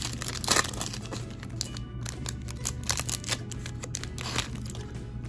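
Foil wrapper of a trading-card pack crinkling and tearing as hands pull it open, with irregular crackles over steady background music.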